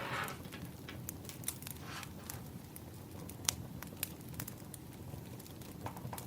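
Wood fire crackling: irregular sharp pops and snaps over a low steady rustle, with the loudest pop about halfway through.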